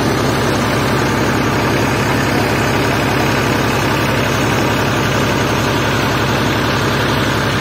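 Tubewell pump engine running steadily with an even low pulsing, while water gushes out of the discharge pipe and splashes across the ground.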